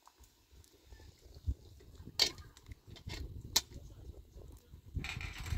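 A few sharp clinks and knocks of metal cooking pots and a kettle being handled beside an open wood fire, two of them about a second and a half apart, with a short burst of rustling noise near the end.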